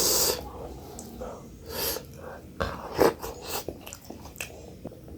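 Close-miked eating sounds: sharp breaths hissed through the mouth, a strong one at the start and another about two seconds in, between smacking, clicking chewing noises, the loudest click about three seconds in. It sounds like someone eating food hot with chilli.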